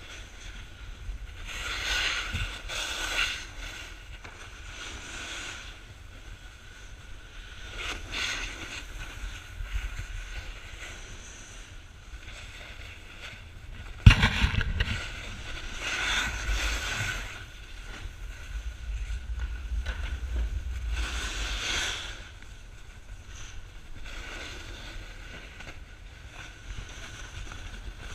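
Board edges scraping and sliding over groomed snow in swells every few seconds, with a low wind rumble on the microphone. A sharp knock about halfway through is the loudest moment.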